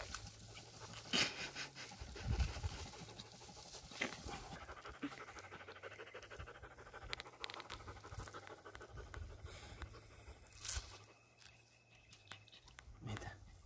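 Rapid panting, mixed with the rustle of dry tussock grass being handled and a few short knocks and clicks.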